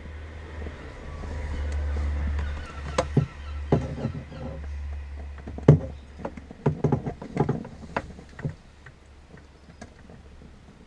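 Hands working on electrical wiring, with a scatter of sharp clicks and small knocks as the wires are fixed into a connection. A low rumble runs under the first few seconds.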